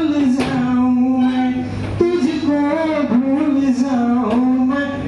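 A man singing a song, holding long notes that bend and slide in pitch, over a low steady hum.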